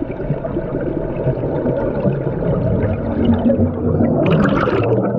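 Scuba breathing heard through an underwater camera: a steady, muffled rumble of water and regulator noise, then a burst of exhaled bubbles rushing past about four seconds in.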